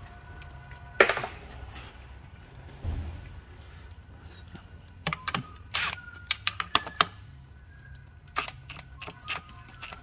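Light metallic clicks and clinks of the transmission pan bolts and socket being worked by hand: one sharp click about a second in, then two quick clusters of clinks in the second half.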